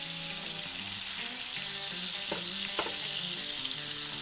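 Chunks of lobster meat sizzling as they fry in melted butter in a skillet, a steady hiss. Two sharp clicks a little past halfway come from the metal tongs turning the pieces against the pan.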